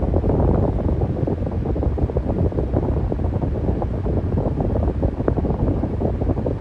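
Electric fan running steadily: a low rush of air with an uneven, fluttering rumble.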